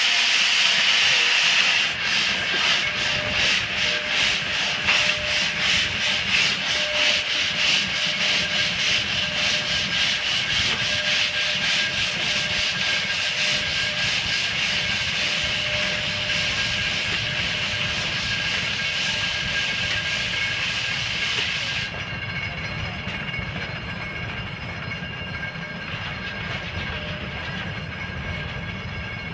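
Mount Washington Cog Railway steam locomotive No. 9 'Waumbek' blowing a loud hiss of steam from its cylinders, then chuffing in a steady, even rhythm as it pulls away. About two-thirds of the way through the sound turns duller and quieter.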